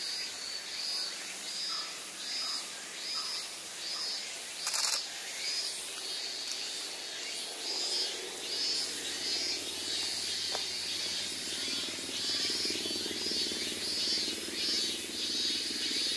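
Insects chirping in a steady rhythm, about one and a half chirps a second, with a low steady hum coming in about halfway.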